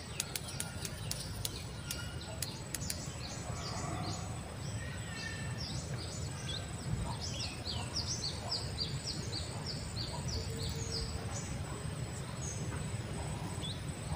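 Outdoor background noise with a bird singing a run of short, falling chirps, about three a second, through the middle stretch. A few faint clicks sound early on.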